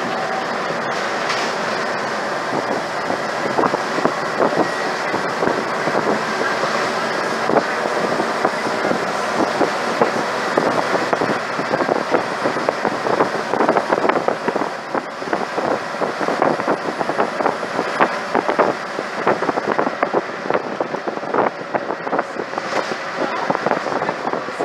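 Cabin noise inside a Scania OmniCity single-decker bus on the move: a steady engine and road drone with loose panels and fittings rattling. The rattles start a few seconds in and come thick and fast from about eight seconds on. It is loud and rattly, the sign of a worn, knackered bus.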